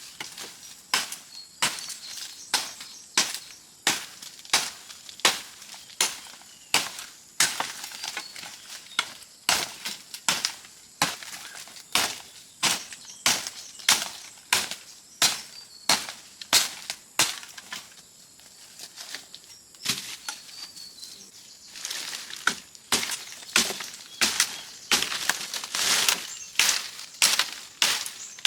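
A steady series of sharp strikes, about one and a half a second, like a tool striking repeatedly. They break off for a couple of seconds about two-thirds of the way through, then start again.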